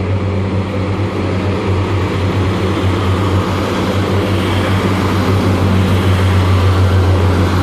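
Class 142 Pacer diesel multiple unit pulling out, its underfloor diesel engines giving a steady low drone with a deep hum, slowly growing louder.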